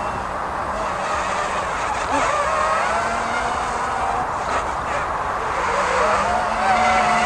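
Quadcopter's motors and propellers whining in flight, the pitch wavering up and down as the throttle changes through flips.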